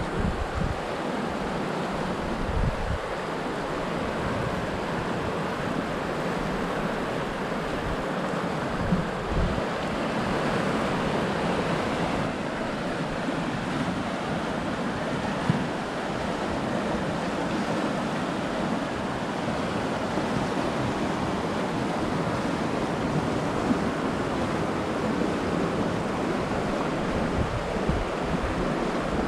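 Mountain river rushing over rocks and riffles, a steady, even rush of water, with wind buffeting the microphone now and then.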